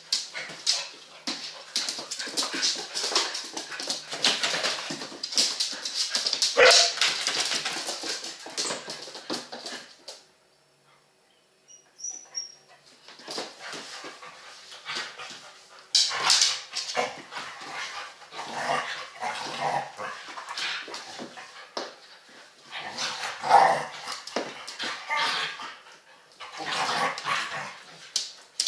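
Two dogs play-fighting, whining, yipping and barking in irregular bursts, with a quiet pause of about two seconds near the middle.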